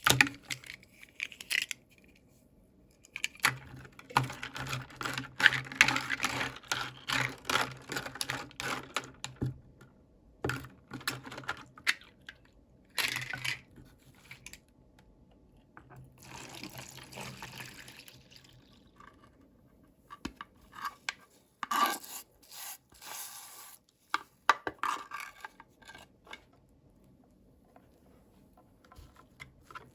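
Toy packaging and small plastic doll pieces being handled and unwrapped: irregular clicks and taps, with stretches of rustling and tearing.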